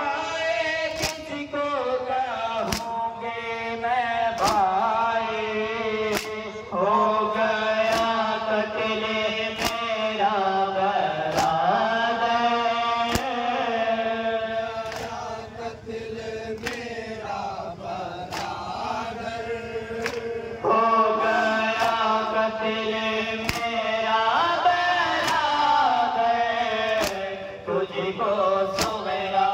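Nauha, a Shia lament, chanted by male reciters through microphones, with the crowd of mourners doing matam. They strike their chests in unison with sharp slaps, about once a second, in time with the lament.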